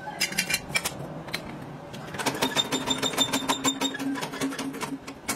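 Hydraulic shop press working as its ram is lowered onto a workpiece: rapid, irregular mechanical clicking and rattling, with a steady hum joining about two seconds in.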